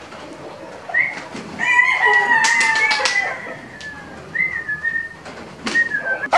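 Rooster calls: a short squawk about a second in, then a longer call that slowly falls in pitch, and more short squawks near the end, among scattered sharp clicks.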